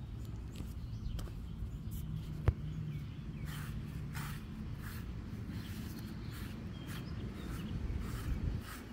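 Deshedding brush scraping through a dog's short coat in repeated strokes, roughly one or two a second from a few seconds in. There is a single sharp click a little before that.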